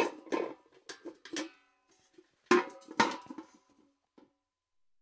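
Steel bucket being knocked and handled: a quick run of clanks with a ringing metallic tone, a pause, then a second run of clanks about two and a half seconds in, and one light tap near the end.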